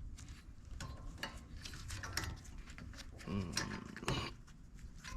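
Scattered light metallic clicks and taps of a brake caliper anti-rattle spring being pushed and levered into place on a rear disc brake caliper.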